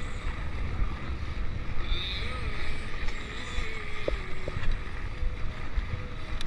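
Wind rushing over the microphone with a steady low rumble and a few faint clicks, as from a camera riding along a mountain bike trail.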